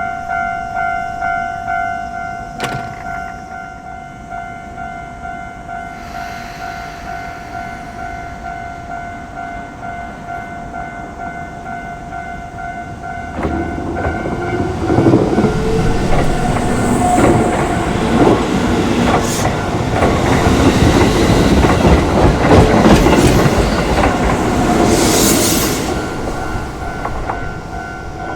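Japanese level-crossing alarm ringing in a steady repeated two-tone ding. About halfway in, an electric commuter train on the Keisei Kanamachi Line passes through, its wheels clattering over the rail joints and growing loud before fading. The bell stops right at the end.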